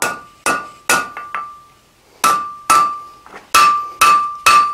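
Blacksmith's hand hammer striking a red-hot bar on the anvil to draw out a taper, each blow ringing. A few blows and light taps, a pause of about a second near the middle, then a steady run of blows at about two or three a second.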